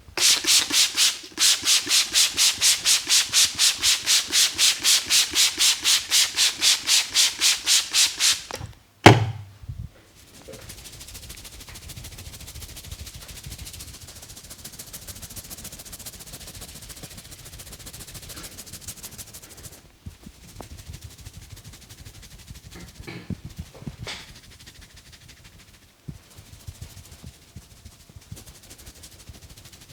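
Hands rubbing briskly over skin in a massage, loud and rhythmic at about four strokes a second, then a single sharp thump. After that comes quieter, steadier rubbing with a few light knocks.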